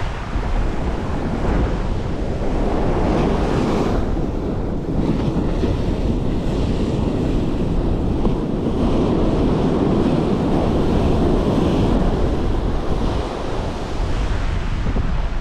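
Ocean surf breaking and washing on the beach, with wind buffeting the microphone.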